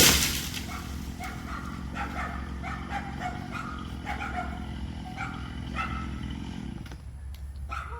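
A dog barking repeatedly in quick, high yaps, over the low idle of a chainsaw that cuts off about seven seconds in. A loud thump opens the sound.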